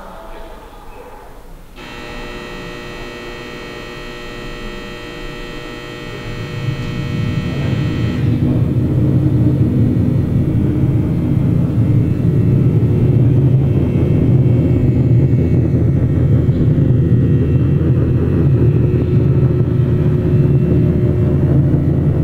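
Layered steady drone. A chord of sustained high tones holds for about six seconds. About six seconds in, a loud, low rumbling hum swells up beneath it and then holds steady.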